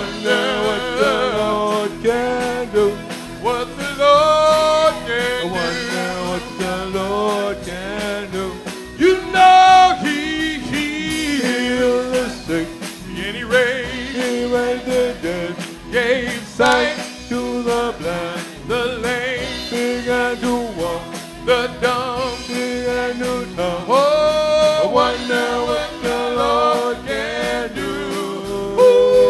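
Live gospel singing with band accompaniment: a sung melody with vibrato over a steady drum beat.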